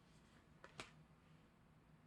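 A K-pop album's packaging being handled quietly: two light clicks in quick succession just under a second in, the second the louder, over near silence.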